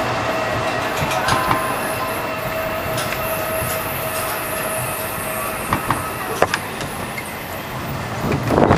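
Intamin mine train roller coaster rolling along its steel track, with a steady whine from the wheels and a few sharp clicks. Near the end a loud rush of wind on the microphone comes in as the train speeds down a drop.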